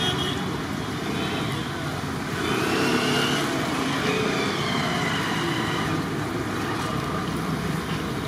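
Hot oil sizzling in a large kadai as balls of rice batter are dropped in to deep-fry as punugulu, over steady roadside traffic.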